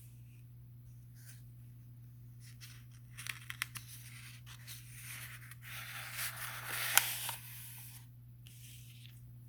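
Paper rustling with small clicks as a book page is handled and turned, ending in one sharp click near the end; a low steady hum sits underneath.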